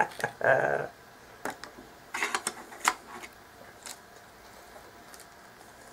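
A handful of light, scattered clicks and clacks of plastic and metal as the Vantec HX4 drive enclosure and its drive trays are handled, with a cluster of quick clicks about two seconds in.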